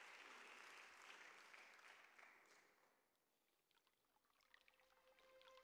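Audience applause in a theatre dying away over about three seconds into near silence. Near the end, the faint held first note of the song's backing track comes in.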